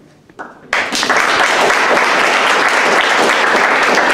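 Audience applauding, many people clapping: it starts suddenly about a second in and carries on steadily.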